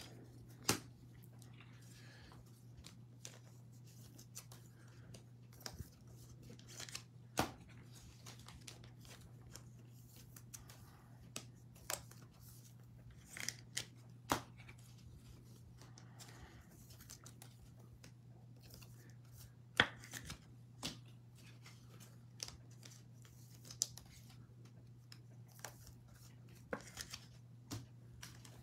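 Faint, scattered taps and brief rustles of trading-card packs and cards being handled and set down on a table, over a steady low hum.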